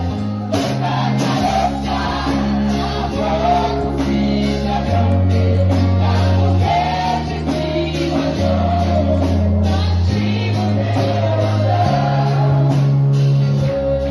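Gospel praise and worship music: voices singing over a band, with held bass notes that change every couple of seconds and a steady drum beat.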